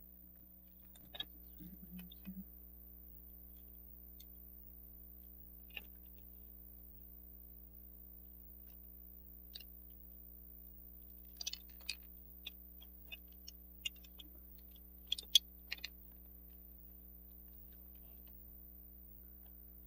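Scattered small clicks and taps of the Armatron's hard plastic housing pieces, shafts and gears being handled and fitted together, coming more often in the middle stretch and loudest about three-quarters of the way through. A faint steady hum sits underneath.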